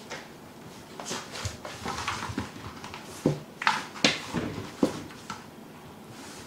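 A cat rolling and squirming on a wooden floor: irregular scuffs and a few sharp knocks, the loudest about three to five seconds in.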